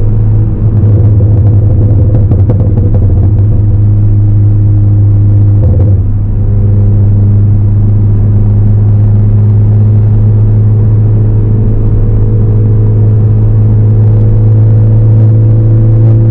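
Ford Focus ST's turbocharged four-cylinder engine and Roush exhaust droning steadily while the car is driven. The level dips briefly about half a second in and again about six seconds in, after which the engine note settles at a slightly different pitch.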